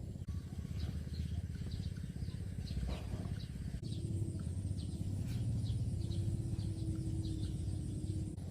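Small birds chirping, short high chirps repeating a few times a second, over a steady low rumble; a faint steady hum joins about four seconds in.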